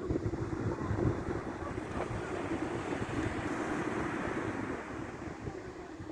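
Surf washing onto the beach, a wave swelling over the middle seconds and then fading, with wind rumbling on the microphone.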